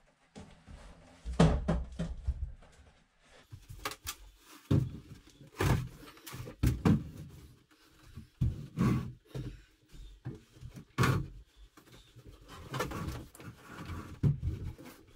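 A wooden bed platform and its frame being handled and tilted up, bumping and scraping: a series of irregular wooden knocks and thumps.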